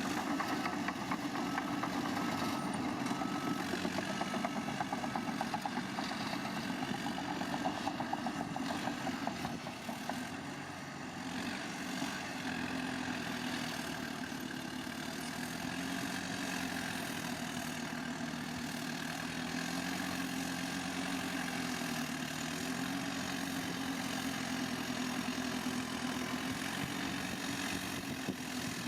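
Heavy earthmoving machinery's diesel engine running steadily, its pitch dipping briefly and recovering a little past two-thirds of the way through.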